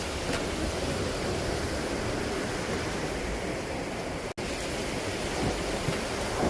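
Steady noise of strong wind and breaking surf, the wind buffeting the microphone; it cuts out for an instant about four seconds in.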